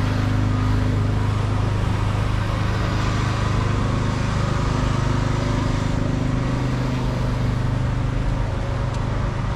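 City street traffic: a motor vehicle engine running close by with a low, steady hum over the general noise of passing traffic. The engine's pitch changes a little about six seconds in.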